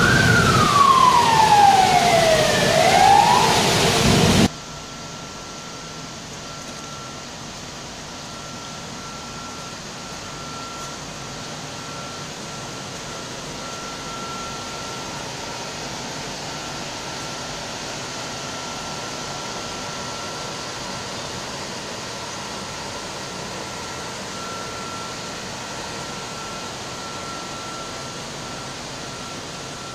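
A wailing siren sweeps up and down in pitch over loud, dense machinery noise, then cuts off suddenly about four seconds in. After that comes a much quieter steady machine hum with a faint high whine that comes and goes.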